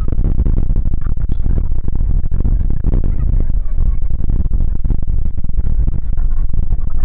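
Wind buffeting the camera microphone: a loud, uneven low rumble that runs on without a break.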